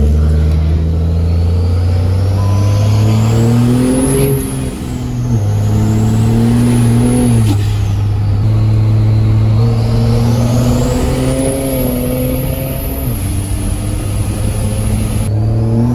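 Turbo-diesel pickup engine heard from inside the cab, accelerating through the gears of a manual gearbox. The engine note climbs and then drops at each shift, about three times, with a high turbo whistle rising and falling over it.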